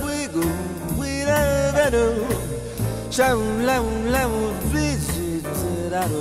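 Jazz ballad played by a large jazz orchestra: a lead melody with wide, wavering vibrato over sustained chords and a walking bass line.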